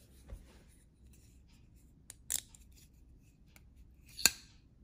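Scissors making a few short, spaced-out snips; the sharpest and loudest one comes near the end.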